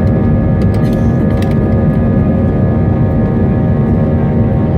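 Airbus A320 jet engines running at high thrust, heard inside the cabin: a steady roar with several steady whining tones over it. A few faint clicks about a second in.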